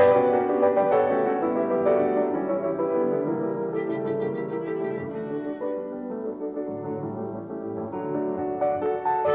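Instrumental background music with piano: a run of sustained, changing notes.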